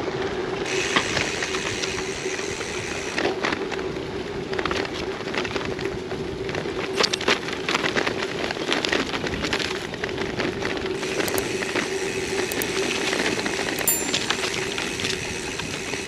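Gravel bike rolling along a gravel track: the tyres crackle over loose stones, with scattered clicks and a steady hum underneath.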